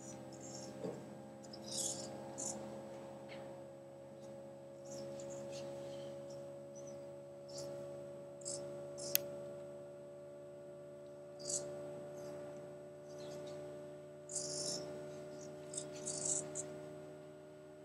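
Hobby servo motors of a small robotic arm buzzing and whirring in short high bursts as the joints and gripper move, over a steady hum of several tones. A single sharp click about nine seconds in.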